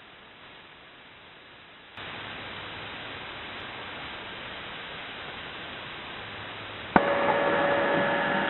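Shortwave radio static: upper-sideband hiss from a web SDR receiver tuned to 4724 kHz, faint at first and stepping up about two seconds in. About seven seconds in there is a click, then a louder signal with a few steady tones as a station's transmitter comes on the air.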